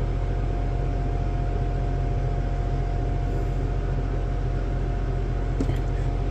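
Steady mechanical hum, deep and constant with a single steady tone over it, as from a fan or motor running. A faint tick about five and a half seconds in.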